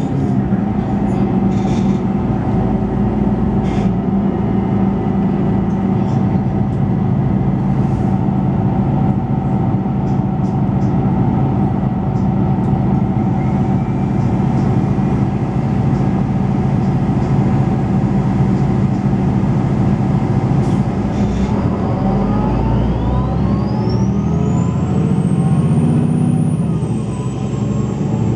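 MAN Lions City G articulated bus running under way, heard from inside the cabin: the steady note of its MAN D 2066 10.5-litre straight-six diesel, with an occasional rattle or knock. About three quarters of the way through, a loud turbocharger whistle rises steeply in pitch, then holds high.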